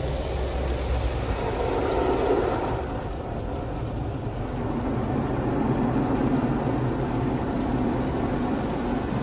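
Automatic car wash water jets spraying and sheeting over a car's windshield and body, heard from inside the cabin as a steady rushing drum of water with the wash machinery running. It swells about two seconds in and again from about five seconds.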